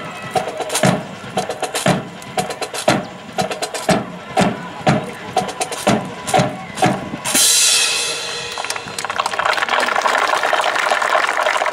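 Marching drum cadence: sharp bass and snare drum strikes about twice a second, then a crash about seven seconds in followed by a fast, steady snare drum roll.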